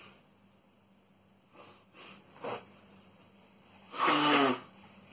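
A man's sneezing fit: a few short sniffs and intakes of breath, then one loud sneeze about four seconds in, its voiced part falling in pitch.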